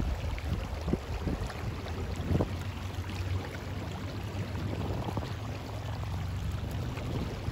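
Wind rumbling on the microphone over the wash and slosh of shallow river water, with a few faint splashes in the first seconds.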